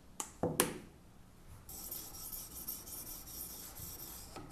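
Two sharp knocks in the first second, then an oiled 600-grit sharpening stone on a guided-sharpener arm scraping back and forth along a Bulat steel knife edge, starting about two seconds in.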